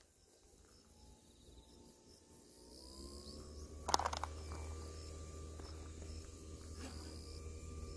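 Faint, steady chirping of insects in the grass, crickets by the sound of it, repeating evenly. From about three seconds in a low hum with faint steady tones builds underneath, and a single sharp click comes about four seconds in.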